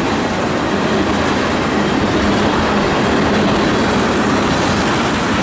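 Freight train tank cars rolling past, their steel wheels running on the rails with a steady, loud noise.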